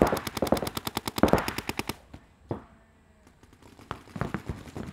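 Paintball markers firing in rapid, evenly spaced streams of shots that stop suddenly about two seconds in, followed by a few scattered pops.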